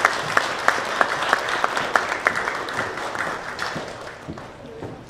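Audience applauding, with one clapper close by standing out in a steady beat of about three claps a second; the applause dies away over the last second or so.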